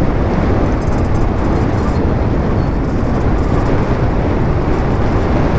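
Steady rush and rumble of wind buffeting the microphone of a camera on a moving e-bike.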